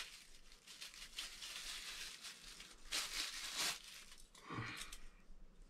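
Packaging rustling and crinkling as the parts of a ring light are handled and unwrapped, with small handling clicks. A louder stretch of crinkling comes about three seconds in.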